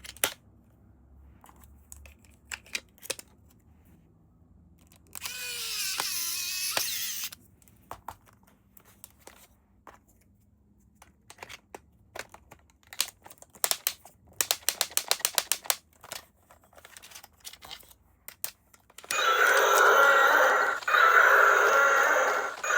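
Toy packaging being handled: scattered clicks and snaps, a couple of seconds of tearing or peeling about five seconds in, and quick runs of clicking later. About nineteen seconds in, a loud electronic toy sound with steady tones starts up.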